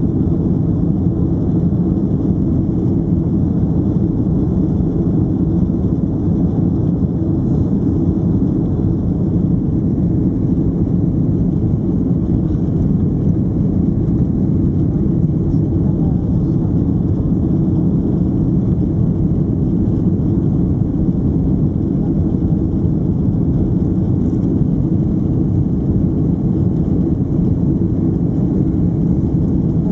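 Steady, low cabin noise of a Boeing 767-300ER climbing after takeoff: engines and airflow heard from inside the cabin, with no change in pitch or level.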